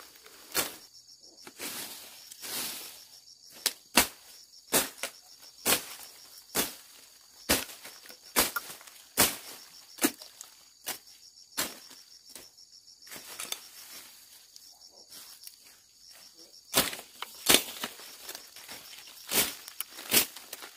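Machete strokes slashing through weeds and grass, sharp cuts coming irregularly about once a second. A high, steady insect buzz runs behind them for most of the time.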